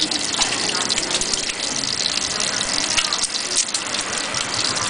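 An egg frying in hot oil in a wok: a steady sizzle with dense crackling and spitting.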